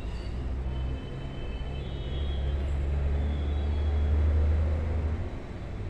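Chopped onions frying in oil in a steel kadhai as they are stirred with a spoon, under a low rumble that swells from about two seconds in and fades again just before the end.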